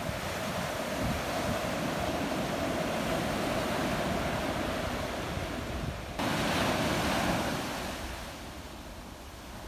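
Gentle surf washing up a dark sand beach, the foam hissing over the sand. About six seconds in a brighter wash sets in suddenly, then fades away over the next two seconds.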